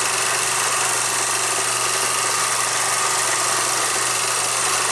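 Film projector running: a steady mechanical whir with a constant low hum and an even hiss.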